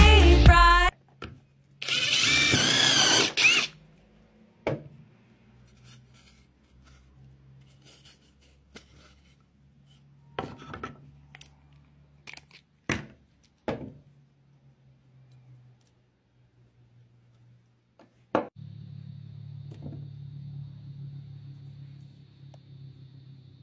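Sharp clicks and knocks of a quick-change countersink bit being handled and fitted, five or so scattered through, after a brief loud burst about two seconds in; a low steady hum comes in near the end.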